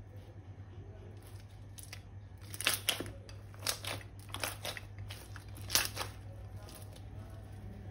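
Several short, sharp crinkles and snips from balloons and plastic piping bags being handled for slime-making, the loudest about six seconds in, over a steady low hum.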